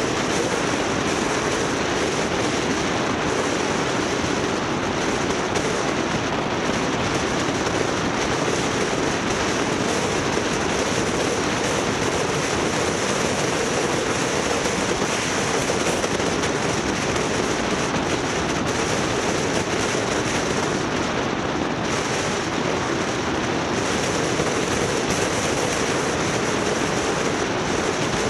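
Steady, unbroken rumble and rush of a vehicle travelling along a road: engine, tyre and wind noise at an even level.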